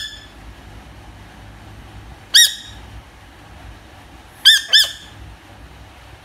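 Squeaky rubber toy squeaking four times, each a short high squeak that rises then falls in pitch: one at the start, one about two and a half seconds in, and a quick pair about two seconds later.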